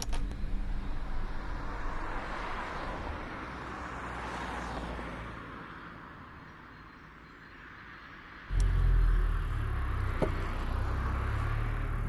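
A hiss of outdoor noise that swells slightly and fades. About eight and a half seconds in it cuts abruptly to the steady low rumble of a car engine idling.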